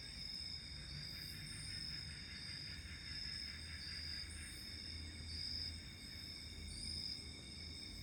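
Chorus of night insects: several steady high-pitched trills at once, one of them swelling and fading about once a second.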